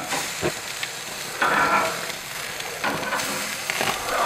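Salmon steaks sizzling on a hot gas-grill grate as they are stood on their sides to sear, with a few sharp clicks of metal tongs against the grate near the start.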